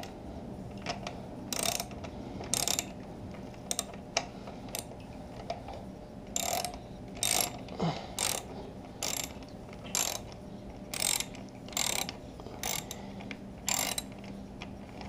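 Hand ratchet and socket being worked in short back-and-forth strokes on a bolt, a brief run of pawl clicks about once a second.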